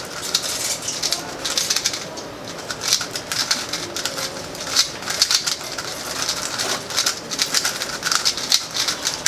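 Two Qiyi Tornado 3x3 speedcubes being turned fast in a race solve: a dense, irregular run of plastic clicks and clacks from the layer turns, with short pauses between bursts of moves.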